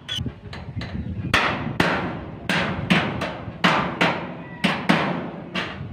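Hammer striking galvanized steel wall framing: a few light taps, then about nine hard blows at a steady pace, each ringing briefly.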